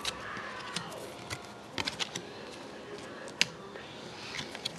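Trading cards and torn pack wrappers handled on a table: light rustling and scattered clicks, with one sharper tap about three and a half seconds in.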